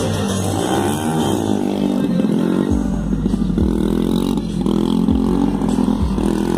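Motorcycle engine revving up and down repeatedly, its pitch rising and falling, as the rider holds a wheelie.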